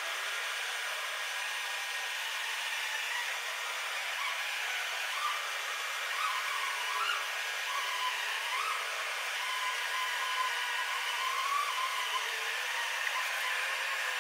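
Steady machine hiss with a faint wavering whine, from the SLJ900/32 bridge-erecting machine travelling forward while carrying a box girder.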